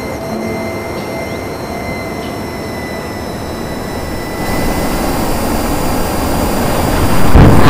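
Sound effect of jet aircraft flying past: a steady jet-engine roar that grows louder about halfway through, then swells suddenly into a much louder rush near the end as a rocket plane streaks by.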